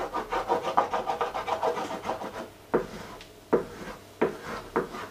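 A cooking utensil scraping and stirring eggs in a frying pan: quick repeated strokes for about two and a half seconds, then four separate knocks against the pan.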